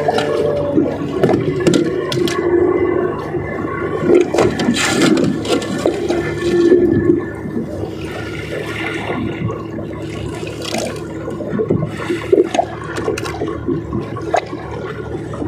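Water sloshing and splashing, with a steady low hum underneath.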